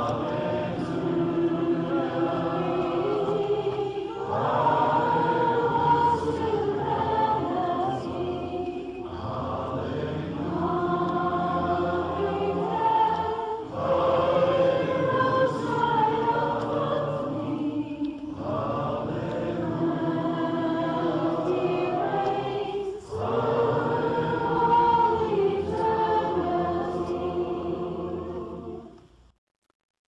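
A group of voices singing a hymn a cappella, in phrases a few seconds long with short breaths between them; the singing fades out near the end.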